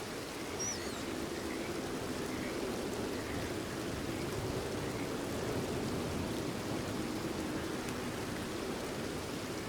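Steady rainfall with faint, repeated short frog calls, and one brief high chirp about half a second in.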